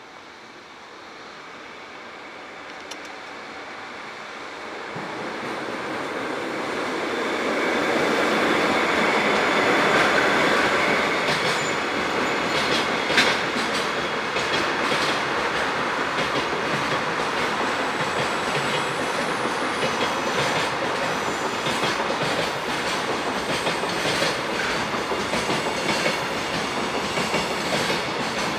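A freight train approaching and then passing close by. Its running noise builds over the first eight seconds or so, then holds steady, with the clickety-clack of wagon wheels over rail joints from about eleven seconds on.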